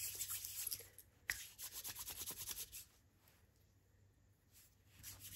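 Hands coated with paper clay rubbing in quick back-and-forth strokes, a soft hissing scrape several times a second. It comes in spells, with a small click a little after a second in and a quieter pause before the strokes return near the end.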